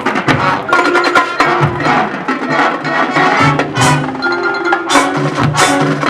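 High school marching band playing its field show, led by percussion: fast, sharp drum and block-like strokes over held pitched notes, with low notes underneath.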